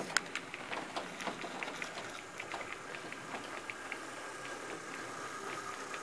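HO-scale model train running past on sectional track: wheels clicking irregularly over the rail joints, with a steady motor whine from the model diesel locomotive coming in about halfway through as it draws near.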